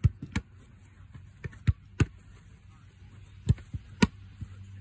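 Footballs being kicked and caught or parried by a goalkeeper's gloves in a shot-stopping drill: several sharp thuds at uneven intervals.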